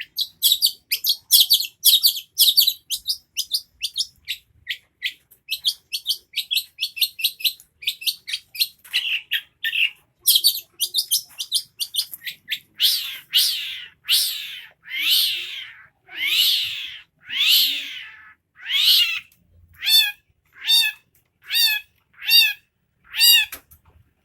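Long-tailed shrike (cendet) singing a long, varied song: fast chattering high notes at first, then slower harsh calls that sweep downward, then a regular run of short arched notes, each under a second apart.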